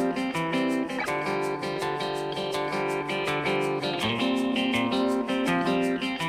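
Background music: plucked guitar playing a steady, repeating pattern of notes.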